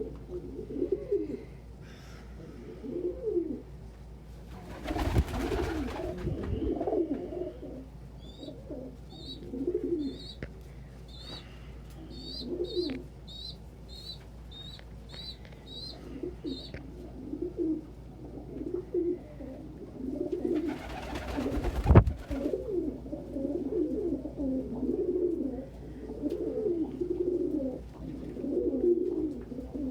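Domestic pigeons cooing over and over, with a run of about a dozen short high chirps in the middle. Two loud rustling bursts break in, one about five seconds in and one a little after twenty seconds.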